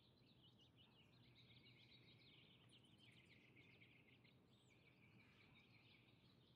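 Faint outdoor ambience of small birds chirping steadily, many quick overlapping chirps and trills, over a low steady hum.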